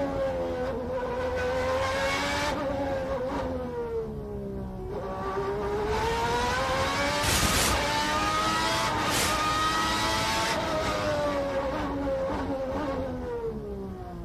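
Ferrari 641's 3.5-litre V12 Formula One engine at racing speed, heard from the onboard camera. Its pitch climbs under acceleration and drops twice as the car slows for corners, once about five seconds in and again near the end, with two short rushes of hiss about seven and nine seconds in.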